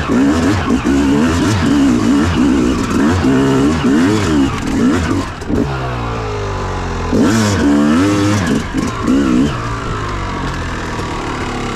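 Dirt bike engine being ridden, revving up and down in quick repeated swings. It eases off to a steadier note about five and a half seconds in, revs hard again around seven seconds, then settles to a lower steady note near the end.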